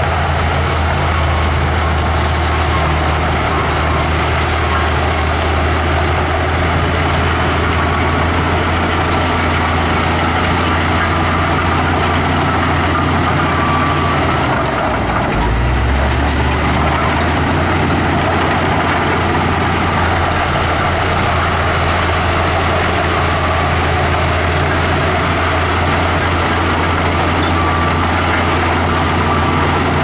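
Heavy diesel engine of an earthmoving machine running with a steady low drone. About halfway through, its note dips briefly and shifts before settling again.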